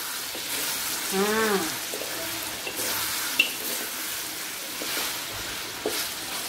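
Chicken frying and sizzling in an aluminium wok with its cooking liquid nearly dried off, stirred and scraped with a wooden spatula, with a few light knocks of the spatula. A brief voice sound about a second in.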